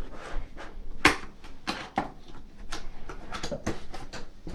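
Irregular light knocks and rustling from something being closed up by hand, with one sharper knock about a second in.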